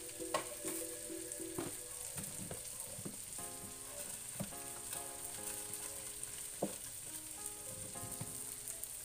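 Baby potatoes frying in butter and garlic in a nonstick pan, a steady sizzle with scattered sharp pops and crackles.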